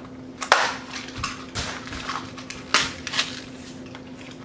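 Cardboard toy packaging being pulled apart and handled: several short tearing and scraping rustles.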